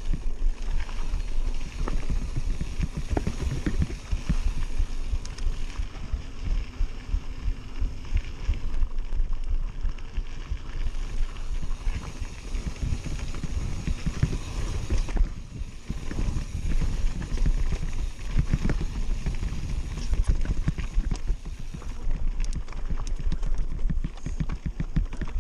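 Mountain bike descending rough dirt singletrack at speed: a constant clatter and rattle of the bike over rocks and ruts, with wind rumbling on the microphone.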